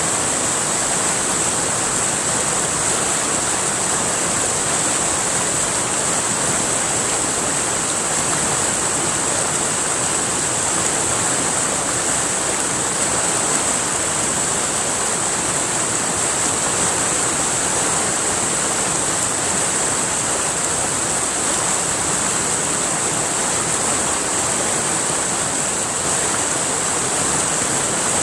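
River water flowing and splashing steadily, with a constant high-pitched hiss over it.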